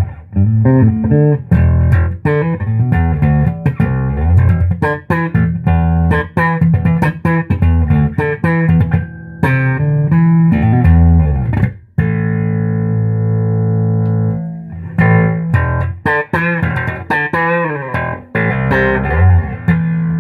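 Fender '57 reissue Precision Bass played through a 1966 Ampeg B-15N Portaflex tube amp: a run of plucked bass notes. Near the middle one note is left ringing for about two seconds, then the playing resumes.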